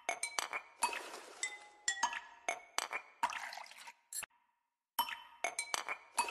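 Wire whisk beating a creamy liquid in a glass bowl, clinking against the glass in quick, irregular strokes, each clink ringing briefly. The sound cuts out completely for under a second about four seconds in.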